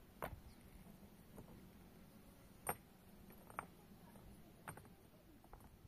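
A few scattered light clicks and knocks over near quiet, the sharpest a little under three seconds in.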